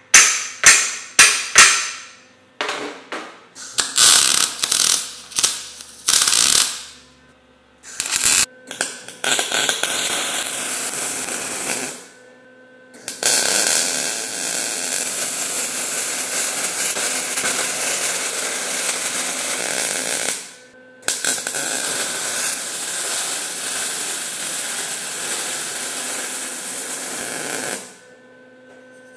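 A few sharp metal strikes, then a MIG welder tacking steel auger flighting: several short bursts of arc crackle, then three longer continuous runs of several seconds each, separated by brief pauses and stopping near the end.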